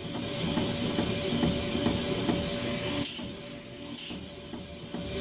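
A power cylinder hone runs with coarse Sunnen stones grinding inside a cast iron cylinder sleeve as it is stroked up and down at the bottom of the bore, opening up a bore that is tapered tight there. It makes a steady motor hum under a grinding rasp, with short hissing bursts about three and four seconds in.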